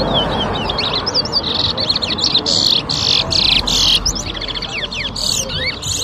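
Towa-towa (chestnut-bellied seed finch) singing: a fast string of high whistled chirps and swept notes, with loud dense song phrases from about one and a half to four seconds in and again near the five-second mark, over steady background noise.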